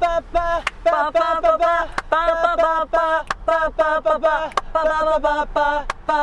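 Men singing a wordless tune on repeated 'ba-ba-ba' syllables: a quick run of short, clipped notes at steady pitches, inside a car cabin.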